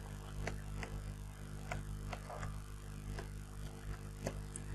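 Computer keyboard being typed on: about ten light, irregular key clicks as a password is entered, over a steady low electrical hum.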